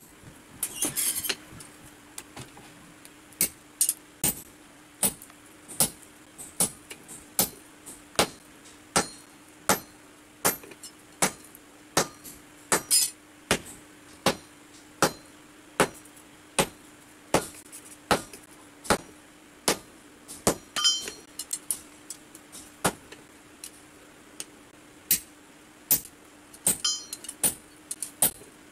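Hand hammer striking red-hot steel on an anvil in a steady rhythm, about one sharp blow every three-quarters of a second: forging the blade of a basula (carpenter's adze). About a second in, before the hammering starts, there is a brief scraping rustle.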